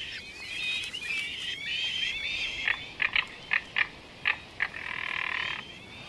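Wild animal calls: a tangle of high, wavering chirps, then a string of short sharp calls a few tenths of a second apart, and a brief rattling trill near the end.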